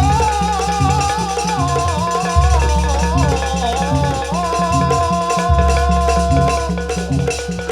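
Background music with a wavering melody over a steady bass and percussion beat.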